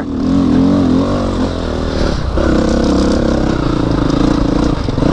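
2009 KTM 250 XC-F dirt bike's single-cylinder four-stroke engine labouring up a steep dirt hill, its note wavering as it runs out of power. About two seconds in the engine note dips briefly, then jumps higher and holds steady.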